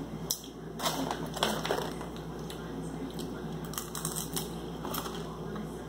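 A resealable plastic snack bag crinkling in a few short crackles, mostly in the first two seconds, as a hand reaches in for caramel popcorn clusters, with fainter crackles later.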